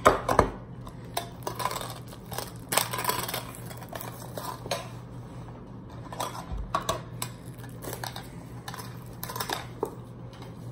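Small metal Pokémon card mini tins being handled and opened: irregular clinks and taps of the tins, with crinkling of their plastic wrap, over a low steady hum. The sharpest clinks come right at the start and again about three seconds in.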